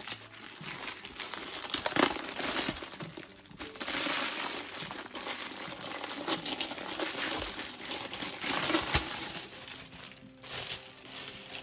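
Clear plastic wrapping crinkling and rustling as it is handled and pulled off a rolled diamond painting canvas, in irregular loud stretches with sharp crackles, easing off near the end.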